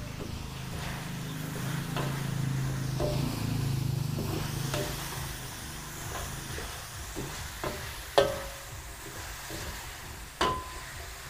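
Carrots and green beans stir-frying with meat in a wok: a steady sizzle, with a metal spatula knocking and scraping against the pan now and then, the loudest knock about eight seconds in.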